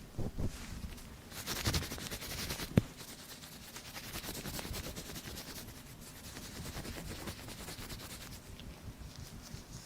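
Ear-cleaning tool scratching and rubbing close against a microphone's ear. The scratching is busiest in the first three seconds, with one sharp click near three seconds in, then it goes on softer and steadier.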